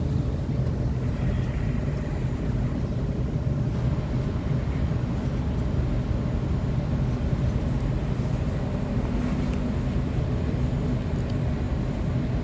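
Waratah electric train, heard from inside the carriage: a steady low rumble with a constant hum.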